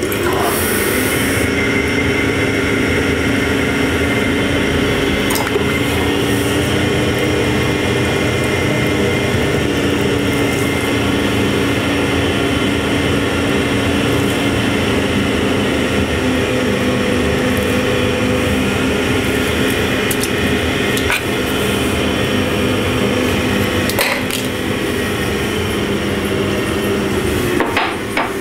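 A potter's wheel running steadily, its motor giving a constant hum while small pots are thrown off a hump of wet clay, with a few faint clicks.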